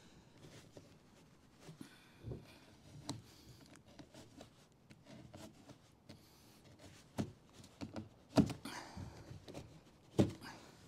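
Utility knife cutting plasterboard: quiet scraping and scoring of the blade through the board, with a few sharper knocks and clicks, the loudest about eight and ten seconds in.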